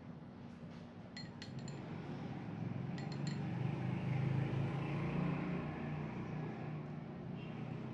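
Metal spoon clinking lightly against a glass dessert bowl: a quick run of three light ringing clinks, then two more a second or so later. A low rumble swells in the background through the middle.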